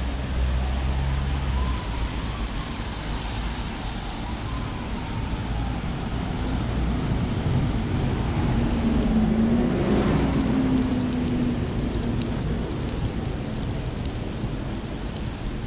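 Road traffic on a wet road, with a bus driving past in the middle, swelling louder and then fading. Wind buffets the microphone in the first couple of seconds.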